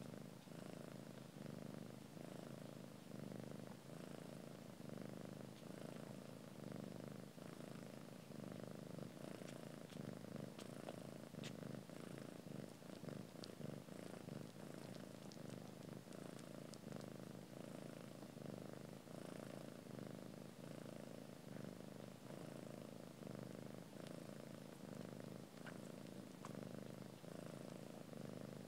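Cat purring, a steady, continuous purr that runs on without a break, with a few faint small clicks partway through.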